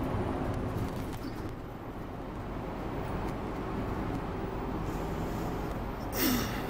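Inside an Enviro200 MMC single-deck bus cruising along a main road: a steady engine and road rumble with a faint whine. About six seconds in, a brief loud hiss with a falling tone.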